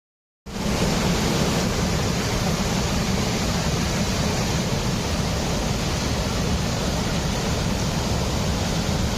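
Steady rush of falling water from a waterfall, cutting in about half a second in after a moment of silence.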